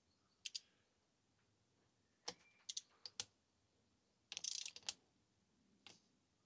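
Sparse metallic clicks of a ratchet torque wrench working the camshaft cap bolts on a VW 16V cylinder head, with a quick run of clicks a little past the middle. The bolts keep turning without the wrench breaking at its 15 Nm setting, which the owners take for a faulty torque wrench.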